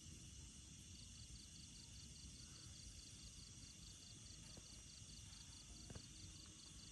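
Near silence with a faint night insect chirping in an even, high-pitched rhythm, about four pulses a second, and a small click about six seconds in.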